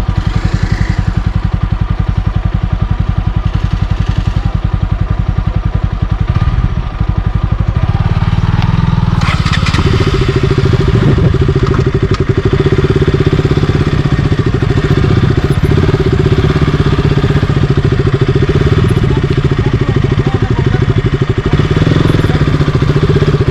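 A 200 cc single-cylinder motorcycle engine running close by, its fast even firing pulses steady throughout. About eight seconds in it is opened up and the engine note rises and holds higher, as the bike is worked on the off-road trail.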